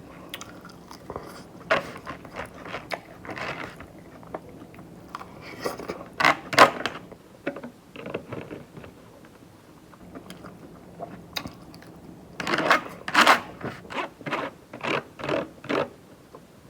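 A person biting and chewing crunchy salad of iceberg lettuce and crispy chicken, in irregular crunches that come in louder clusters about six seconds in and again from about twelve to sixteen seconds.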